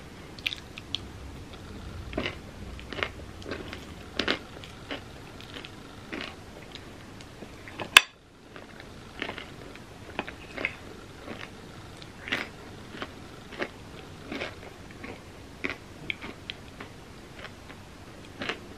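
Close-up eating sounds of a person eating a vegan chocolate peanut butter ice cream sundae with a spoon: wet mouth smacks and chewing in short, irregular bursts. One sharp click about eight seconds in is the loudest sound.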